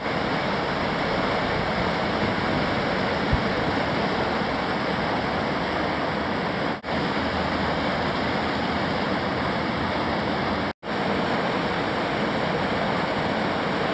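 Rushing whitewater of a river rapid: a steady wash of noise that cuts out briefly twice, about halfway through and again about three-quarters of the way in.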